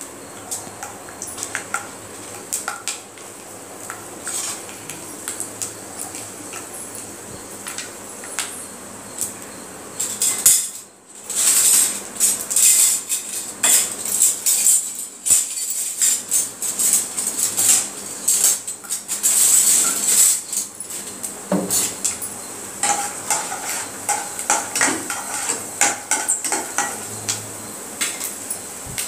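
Peanuts frying in hot oil in a kadai, with irregular sharp crackles and clicks. After a brief break about ten seconds in, the crackling turns louder and denser with a bright hiss.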